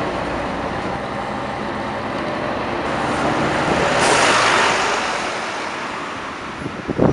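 Roadside traffic: a passing vehicle's road and engine noise swells to a peak about four seconds in, then fades. A short, loud rumble comes just before the end.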